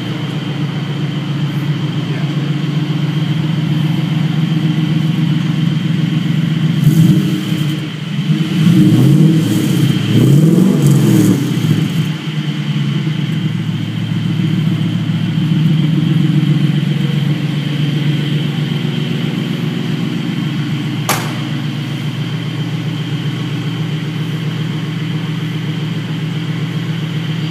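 Ford Coyote 5.0 V8 engine in a 1968 Mustang fastback running at a steady idle, revved a few times between about seven and twelve seconds in, then settling back to idle.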